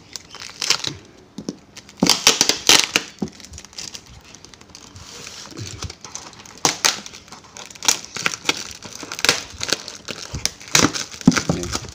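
Brown paper, clear plastic wrap and packing tape being pulled and torn off a parcel by hand, crinkling and crackling in irregular bursts, loudest about two seconds in and again several times toward the end.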